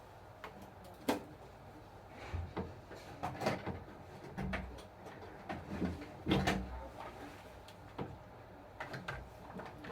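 Irregular clicks, knocks and light thuds of parts of an RC bulldozer model being handled, about a dozen over several seconds, with the heaviest knocks near the middle.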